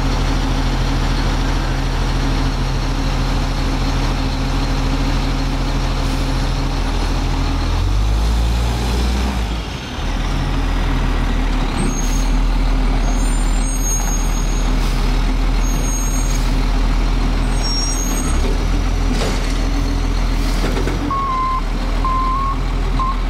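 Diesel engine of a 2004 Peterbilt 320 front-loading garbage truck running and working the hydraulic lift arms as a container is emptied and lowered. The engine note shifts about eight seconds in and dips briefly near ten seconds, and several short hisses of air follow in the second half.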